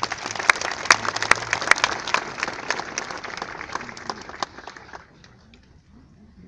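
Audience applauding, a dense patter of many hand claps that dies away about five seconds in.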